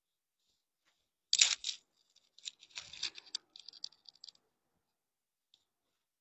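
Things being handled nearby: a sharp clack about a second in, then rustling and light knocks for about three seconds.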